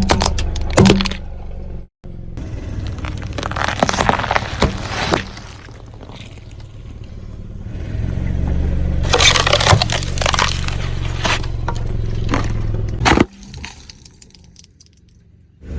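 A car tyre rolling over objects and crushing them: bursts of cracking and crunching over the low rumble of the car's engine. The sound cuts off abruptly twice, and the last couple of seconds are much quieter.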